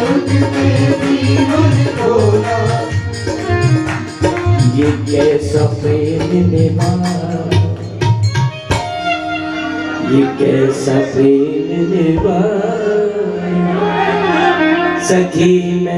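Live Indian devotional music: tabla strokes and a harmonium's held chords accompanying singing.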